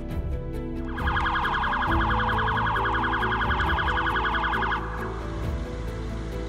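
Police car siren in a fast warbling yelp, starting about a second in and cutting off after about four seconds, over soft background music.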